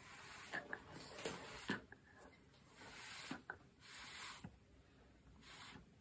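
Breath blown through a metal drinking straw onto wet acrylic paint, pushing the paint across the canvas: about five short, soft airy puffs with pauses between them.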